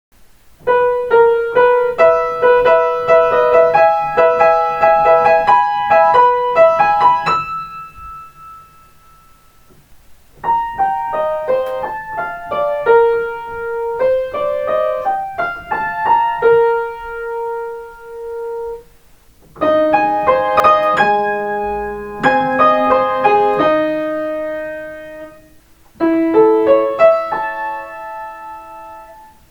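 Piano playing Kintetsu limited express onboard chime melodies, transcribed by ear, as four short separate phrases with pauses between them.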